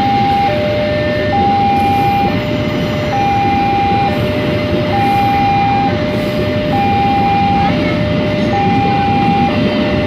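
Level-crossing warning alarm sounding two alternating tones, a higher and a lower, each held just under a second, over the rumble of a passenger train passing.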